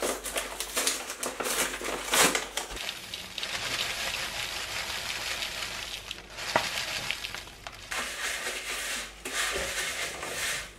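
A bag of oats is rustled and opened, then rolled oats are poured in a steady hissing stream into a mixing bowl for about four seconds. Near the end the oats are stirred with a wooden spoon, scraping against the bowl.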